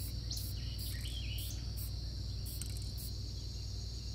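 Steady, high-pitched chorus of insects chirring, over a low steady rumble.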